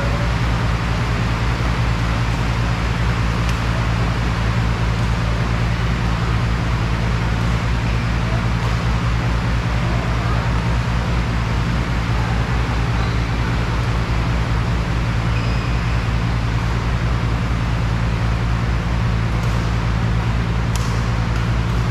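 Steady, loud mechanical hum with an even rushing noise over it, and a few faint clicks.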